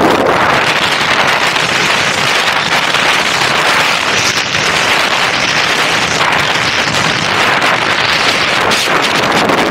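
Loud, steady rush of wind over an action camera's microphone during a fast descent down a snowy ski slope, mixed with the hiss of sliding on snow and a faint crackle.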